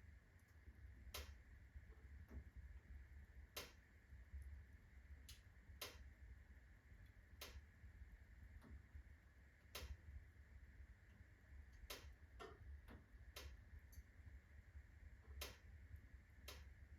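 Birch-log fire in a fireplace crackling faintly: sharp, irregular pops and cracks, one every second or so, with a quick cluster about twelve to thirteen seconds in. The fire is past its full blaze and burning down.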